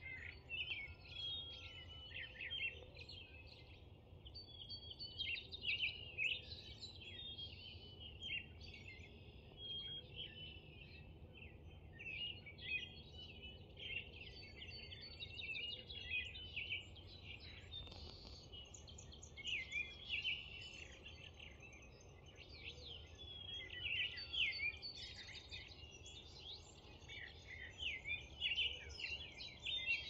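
Early-morning dawn chorus: many songbirds singing at once, a dense, continuous mix of overlapping chirps and trills, over a steady low background rumble.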